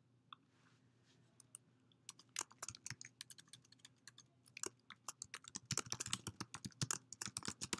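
Typing on a computer keyboard: a run of quick key clicks that grows denser over the last few seconds, after a single faint click about a third of a second in.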